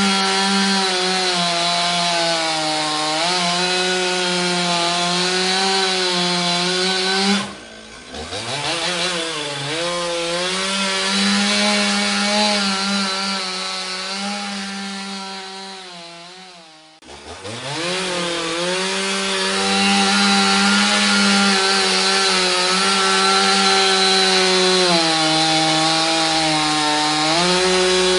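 Two-stroke chainsaw running at high revs with a steady engine note. About seven seconds in, the engine drops off sharply and revs back up. It fades again, then comes back with a rising pitch at about seventeen seconds and holds steady.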